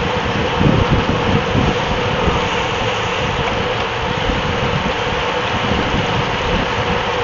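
Steady wind and road rush on a bike-mounted camera's microphone, riding in a moving pack of racing road bicycles, with gusty low buffeting throughout.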